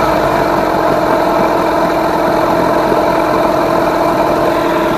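Rebuilt Yamaha 15 hp outboard engine idling steadily with its cowl off. After a restart it settles straight back to the same idle speed, which the owner takes as the idle mixture running in its sweet spot.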